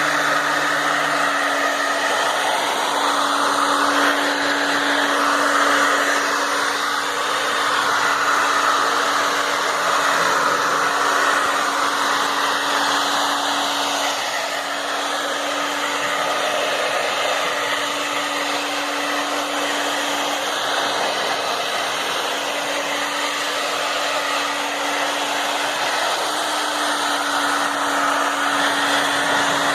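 Hair dryer running steadily, a continuous rushing hiss with a steady hum, heating a dried-out refrigerator door gasket to soften it.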